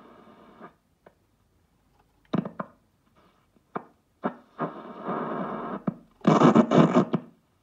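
Shortwave reception through a Schaub Amigo III tube radio's loudspeaker: choppy bursts of static and distorted, garbled station audio broken by short gaps, loudest near the end.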